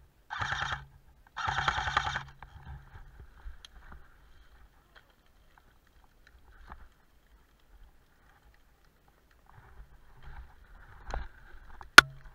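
Airsoft rifle firing on full auto: two short bursts of rapid shots near the start, the second a little longer. Near the end comes one sharp, loud snap, the loudest sound here.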